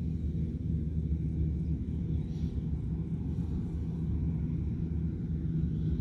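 Combine harvester working across the field, heard from a distance as a steady low drone.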